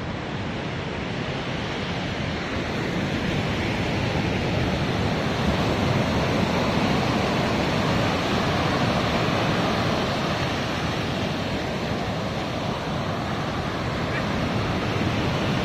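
Sea surf breaking and washing up a sandy beach, a steady rushing wash that grows louder over the first few seconds, with wind on the microphone.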